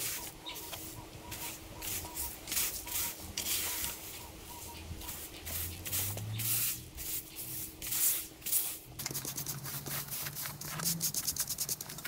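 Stiff brush scrubbing patio slabs in irregular scratchy strokes, the strokes turning quicker and more even after about nine seconds.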